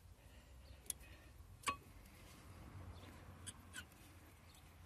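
A few faint, sharp clicks of a screwdriver working a stuck brake pad loose in the caliper, the loudest about one and a half seconds in.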